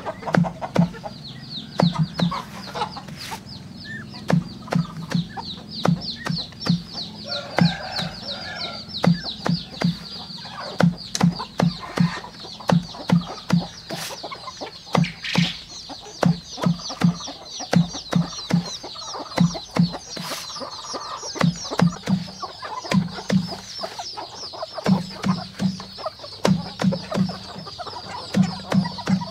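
A knife chopping banana stem on a sack laid on the ground: dull thuds about twice a second. Chickens cluck around it, over a steady high chirring.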